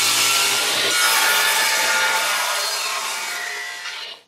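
Table saw ripping an oak stair tread: a steady whine of the spinning blade cutting through the hardwood, tapering off near the end as the cut finishes.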